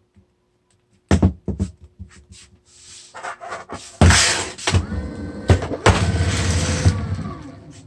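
Onewheel Pint's hub motor running with a steady whine after a few knocks and clicks. The whine winds down in pitch as the wheel slows near the end: the rebuilt board being tested after the tire change.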